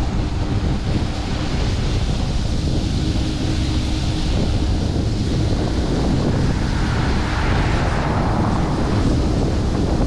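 Wind buffeting the microphone: a heavy low rumble with hiss over it, swelling brighter about seven seconds in.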